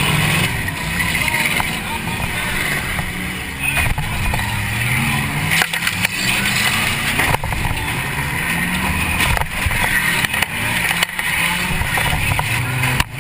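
Demolition derby car's engine heard from inside the cabin, revving up and down, with several sharp bangs of metal-on-metal collisions.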